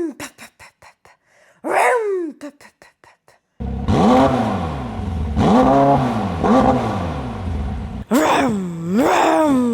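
A woman imitating a car with her voice: a falling squeal-like swoop followed by a quick run of clicks, heard twice, then a string of rising-and-falling revs like an engine going up through the gears, ending in higher, faster swoops.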